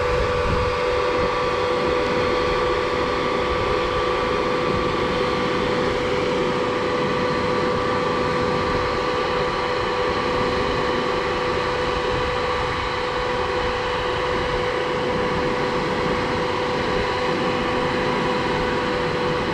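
Concord 40-meter Z-boom concrete pump truck running steadily while its boom is folded, with a constant whine from the hydraulics over the engine noise.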